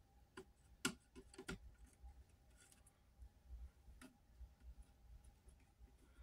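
Near silence with a few faint plastic clicks and taps as an action figure is worked onto its display stand's peg, several in quick succession in the first second and a half and one more about four seconds in.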